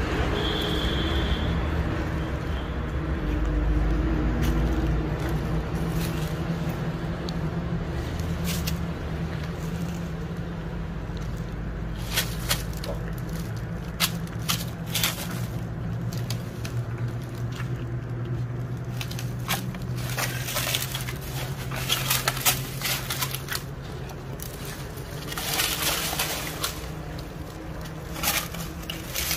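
Sloth bears foraging in dry leaves and litter, giving irregular crackling, crunching and rustling as they nose through the leaves and a plastic bag, over a steady low hum.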